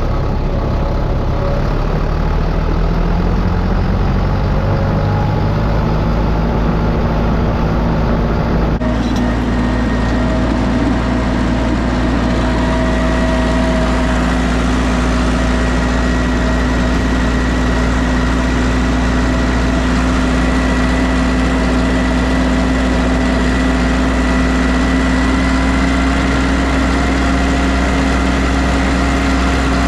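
Tractor engine running steadily, its pitch rising a little over the first several seconds, with an abrupt change in tone about nine seconds in.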